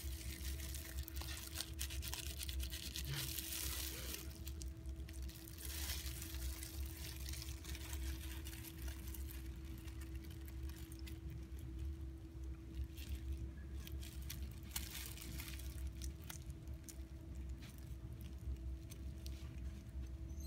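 Irregular rustling and crinkling of plastic food-prep gloves and paper towel as hands handle and wipe a small fish, over a steady low hum.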